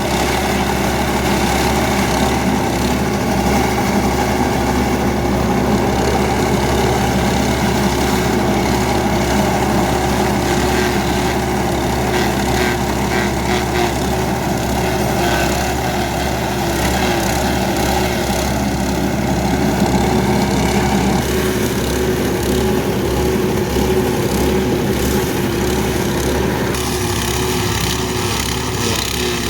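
An engine running steadily and loudly, with an even hum that shifts slightly in tone about 21 seconds in and again near the end.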